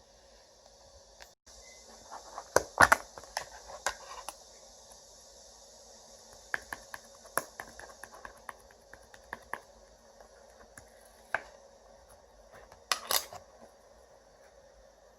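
Slime being handled and played with, giving irregular sharp clicks and pops. They come in a dense flurry a few seconds in, scattered single clicks follow, and another loud cluster comes near the end.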